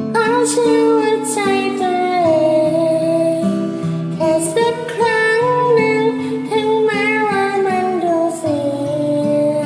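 A woman singing a song with long held notes that glide downward, accompanied by acoustic guitar.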